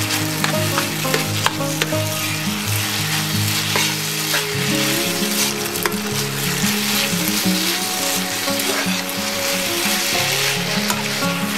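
Food sizzling in a hot frying pan while it is stirred, with a few light clicks, under steady background music.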